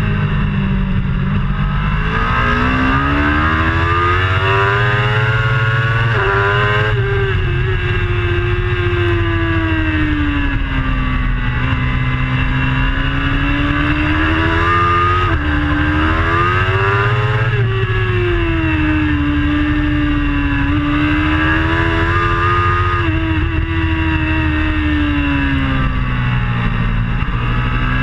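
Onboard sound of a racing superbike's engine at full race pace. The engine pitch drops and climbs again several times as the bike slows for corners and accelerates out, with brief jumps at gear changes, over steady wind and road noise.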